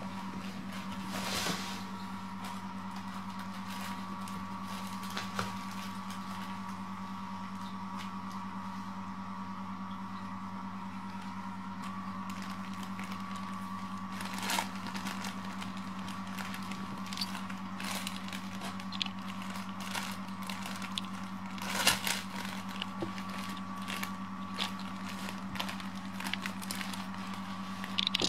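Kittens scrambling in and around a fabric pop-up cat tunnel: scattered rustles, scrapes and small ticks, with a few louder rustles and a run of small ticks in the second half. A steady low hum runs underneath.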